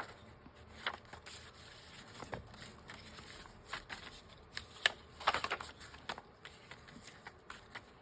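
Sheets of paper and book pages being handled and stacked: scattered rustles and light taps, with a short flurry of rustling about five seconds in.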